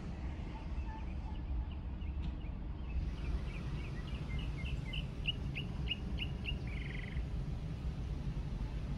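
A bird calling: a run of short rising chirps that quickens, ending in a brief buzzy note, over a steady low rumble from the car.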